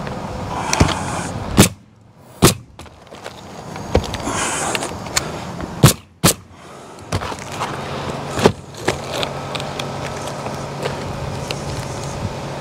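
Pneumatic coil roofing nailer firing nails through asphalt shingles in about five sharp shots, two of them in quick succession halfway through. Shingles rustle and scrape as they are handled between shots.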